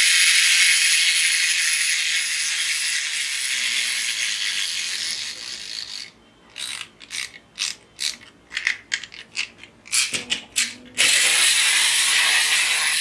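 Geared spring motor of a small toy skateboard figure whirring as its wheels spin, dying down over about six seconds. This is followed by a run of irregular ratcheting clicks as it is wound again, and the whirr starts up again about eleven seconds in when it is released.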